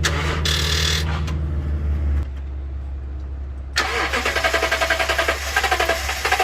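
Toyota Tundra's starter motor cranking the engine in a rhythmic churn that stops abruptly about two seconds in without the engine catching: a no-start. Near four seconds in a rapid ticking, clattering sound starts and carries on.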